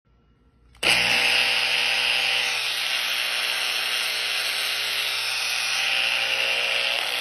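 Electric angle grinder motor switching on about a second in and running steadily with a whine, while thick smoke pours out of its housing: the motor is burning out.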